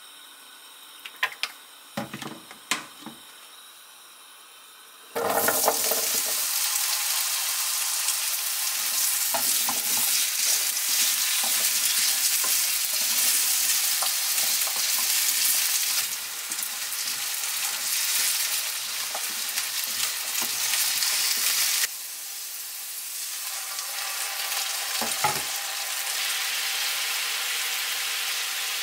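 Cubed potatoes sizzling in oil in a non-stick frying pan and being stirred with a spatula. The sizzle starts suddenly about five seconds in, as the potatoes go into the hot oil, after a few light knocks.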